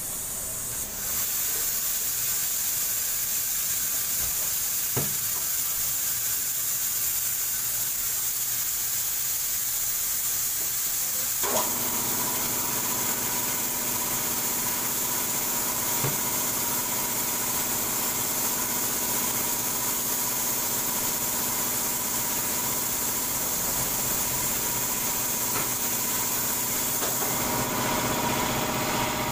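Steady hiss of rushing air. About a third of the way in, after a knock, a motor starts and runs on with a steady hum and whine.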